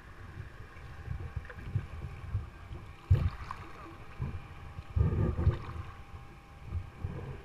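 Kayak paddling: river water splashing and slapping against the plastic hull, heard close from the bow, with irregular low thuds, the strongest about three seconds in and a cluster around five seconds.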